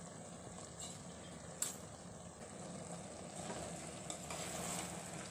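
Soya-chunk masala sizzling gently in a pressure cooker under a layer of soaked basmati rice, with a light clink about a second and a half in. From about three and a half seconds in a ladle stirs and scrapes, mixing the rice into the masala.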